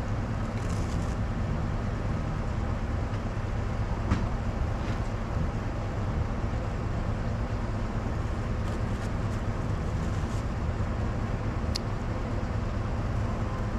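A vehicle engine idling, a steady low hum, with a few faint clicks.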